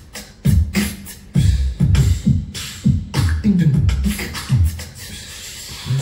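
Yamaha Genos 2 keyboard's beatbox drum kit playing a rhythmic pattern of sampled mouth-made drum sounds: deep kicks that drop in pitch, with snare and hi-hat hits between them.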